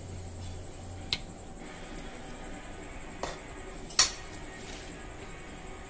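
A few separate metal clinks of a spoon against an aluminium kadhai of curry, the loudest about four seconds in.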